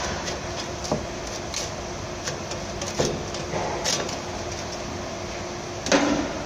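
A few short clinks and knocks of tools and metal parts being handled overhead under a van, the loudest near the end, over the steady hum of a workshop fan.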